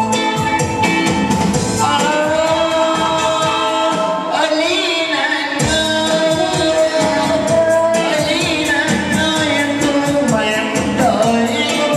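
Live singing into microphones over electronic keyboard accompaniment with a steady beat, amplified through a PA system.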